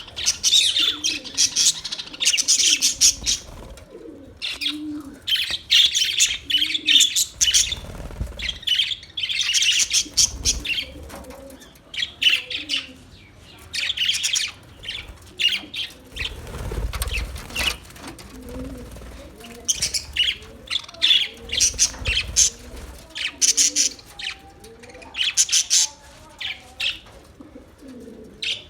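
Australian parrots chirping and chattering in rapid bursts of high notes, over and over with short pauses, with a few low thuds now and then.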